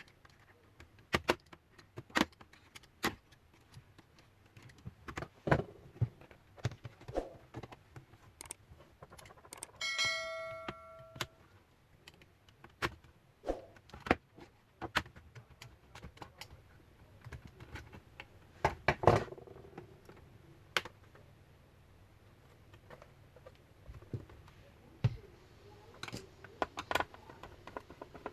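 Scattered clicks, taps and knocks of a laptop's plastic case and a screwdriver being handled during disassembly, with the back cover being worked loose. About ten seconds in there is one short metallic ring, a small metal tool or part striking a hard surface.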